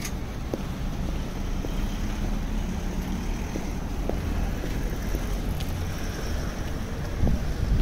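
City street ambience at a busy intersection: a steady low rumble of road traffic, with a few faint knocks scattered through it and a louder low bump near the end.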